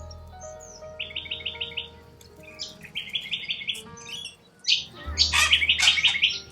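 Corella cockatoos calling: rapid runs of chattering notes, then a loud burst of harsh screeching calls about five seconds in.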